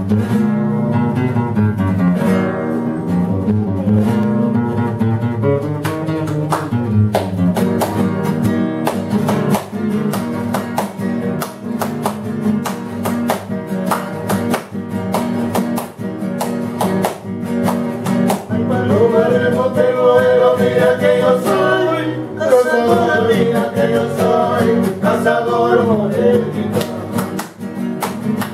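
Two acoustic guitars playing the instrumental introduction of a Peruvian marinera, strummed and plucked in a lively rhythm, with hand-clapping keeping time.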